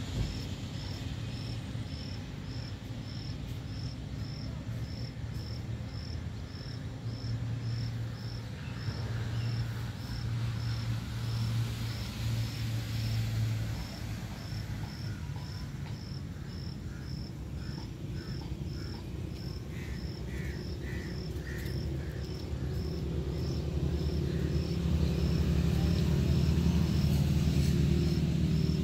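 An insect chirping, one short high chirp repeated evenly about every two-thirds of a second, over a low steady rumble that grows louder in the last few seconds.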